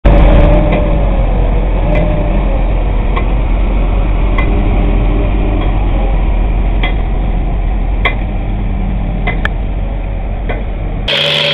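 Diesel engine of a tracked crawler dumper running under load as it crawls through mud: a steady deep rumble with a wavering whine in the first few seconds and scattered sharp metallic clinks.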